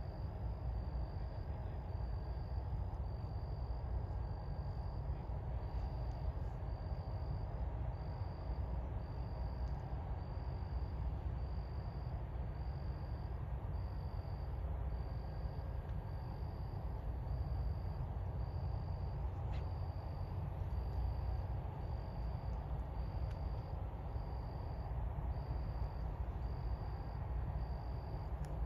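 Steady low rumble of a harbour at night, with a faint high-pitched chirp repeating evenly about every second and a half.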